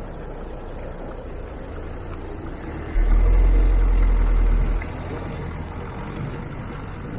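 A car driving slowly, heard from a camera mounted on the outside of the car: steady road and engine noise. About three seconds in a much louder low rumble starts suddenly and stops just under two seconds later.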